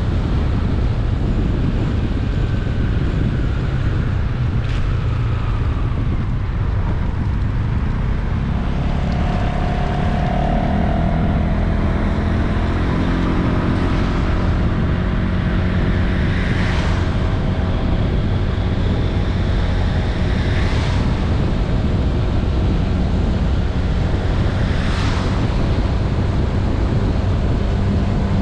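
Wind buffeting the microphone while riding a Honda Vision 110 scooter, its single-cylinder engine running underneath. From about ten seconds in the engine note comes through more clearly, and three short hissing swells pass in the second half.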